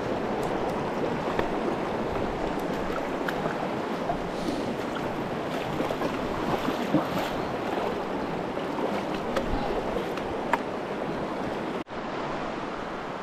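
Shallow river water rushing steadily, with scattered small clicks over it. The sound drops out for an instant about a second before the end.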